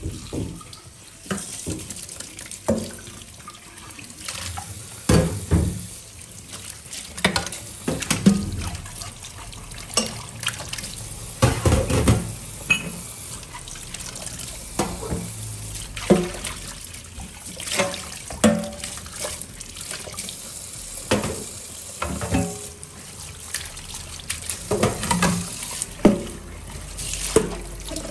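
Kitchen tap running into a stainless steel sink while dishes are rinsed by hand, water splashing off them. Frequent irregular knocks and clinks as the dishes are handled in the sink.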